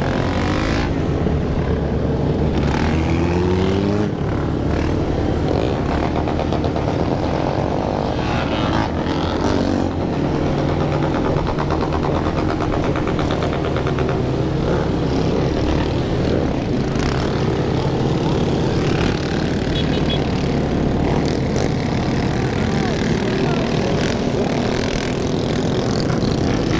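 Many motorcycle engines running together in a dense, steady drone, with engines revving up now and then.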